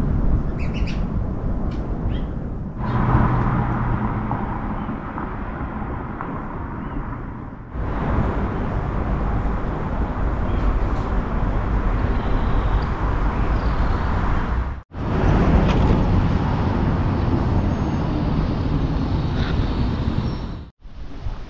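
Street ambience of steady road traffic noise, with a few faint bird chirps; it cuts off abruptly and resumes several times as the clips change.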